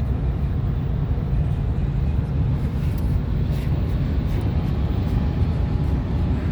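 Steady low rumble of vehicle and road noise, with no horn or other distinct event standing out.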